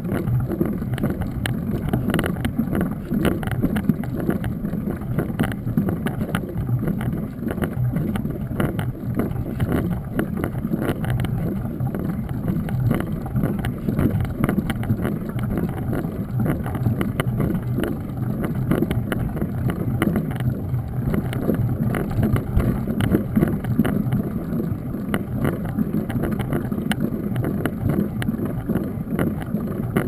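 Wind buffeting and road rumble on the microphone of a camera mounted on a mountain bike rolling over rough wet asphalt. It is a steady, loud noise with frequent small rattles and clicks.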